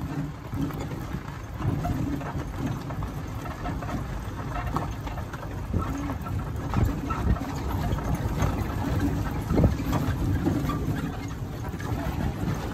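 A summer training rig pulled by a sled-dog team, rolling over a dirt and gravel road: a steady low rumble with scattered clicks and rattles.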